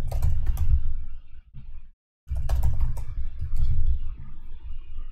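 Typing on a computer keyboard: two runs of quick keystroke clicks with dull thuds underneath, with a brief pause about two seconds in.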